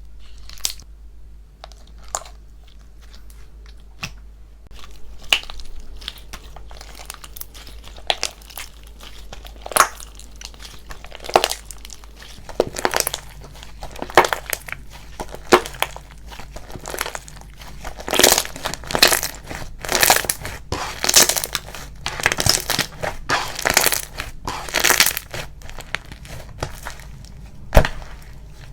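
Slime being squeezed and poked by hand, giving crisp crackling pops. The pops come singly at first and grow denser and louder in clusters from about halfway through.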